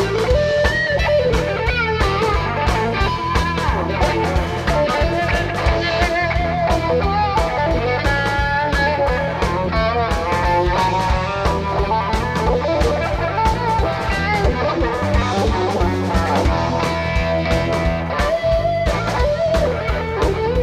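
Live blues-rock band playing an instrumental jam: a lead electric guitar solos with bent, wavering notes over bass guitar and a drum kit.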